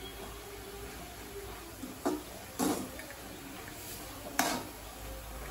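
Steel ladle stirring moringa greens in a metal kadai, knocking and scraping against the pan three times, about two seconds in, half a second later, and loudest near four and a half seconds.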